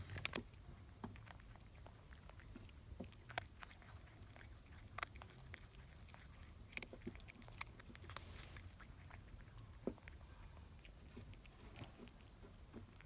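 Canadian Sphynx cat chewing and biting cucumber: faint, irregular crunches and clicks a second or two apart.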